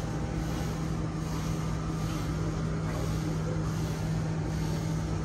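A steady low mechanical hum over an even background hiss, unchanging throughout.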